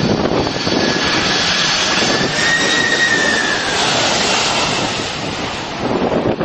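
Boeing 747 jet engines running, a loud continuous rush with a high whine that rises and then falls a couple of seconds in.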